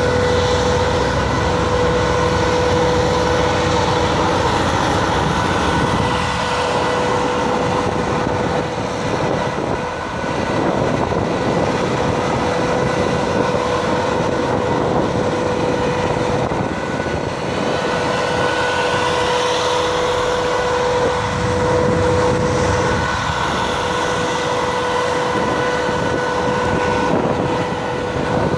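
Steady drone of a tug's diesel engine running close by, with a constant hum over a dense rushing noise that holds level throughout.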